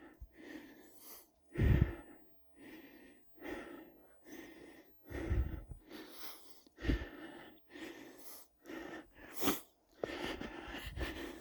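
Footsteps crunching in snow, about one step a second; a few steps land with a heavier thud.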